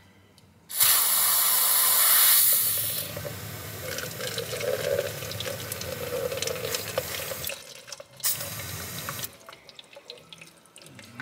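Aerosol brake cleaner sprayed into a car's rear axle in a loud two-second hiss, then the solvent running and dribbling out of the axle into a catch container; a second short spray burst follows near the end. This is a solvent flush of the axle casing to wash out dirt after the old gear oil has drained.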